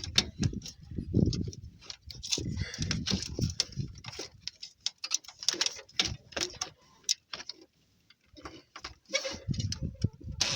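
Irregular clicks and knocks of a hand wrench working the alternator mounting bolts, with dull thumps of tool handling; a short lull a little past the middle.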